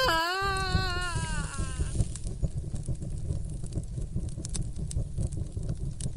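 A high, wavering wail with a trembling pitch fades away over the first two seconds. A steady low rumble with scattered faint crackles carries on after it.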